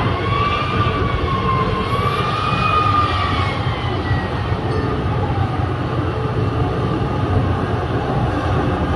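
Large mining wheel loader and haul truck running, with a steady heavy diesel rumble. A wavering machine whine rises and falls over the first four seconds or so and fades out about five seconds in.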